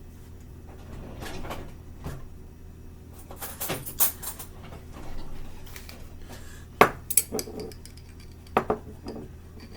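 Kitchen utensils and dishes clinking and knocking as jalapeno slices are put on a pizza. The sharpest click comes about seven seconds in, with another near the end, over a low steady hum.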